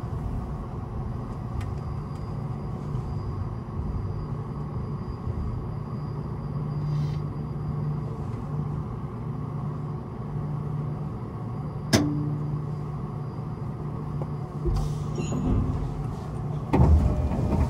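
Inside a Skyrail suspended people-mover car running slowly into a station: a steady low hum, a single sharp click about twelve seconds in, and a louder clunk and rumble near the end.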